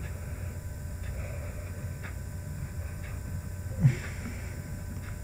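Steady low background hum with a few faint taps of a stylus on a tablet screen as lines are drawn, and one brief low thump just before four seconds in.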